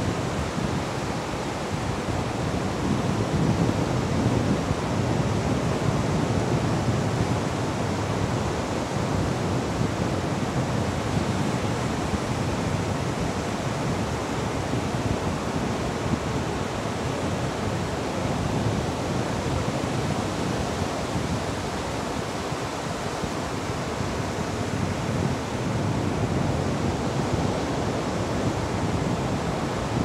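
Ocean surf breaking on a sandy beach: a steady, even rush of waves with no single crash standing out, swelling slightly about three seconds in.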